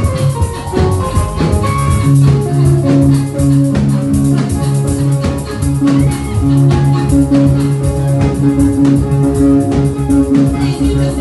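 Upbeat church dance music with a steady beat and held melodic notes.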